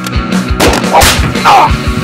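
Background rock music with a fast, steady drum beat of about four hits a second, and a few sharp whip-like hits laid over it about a second in.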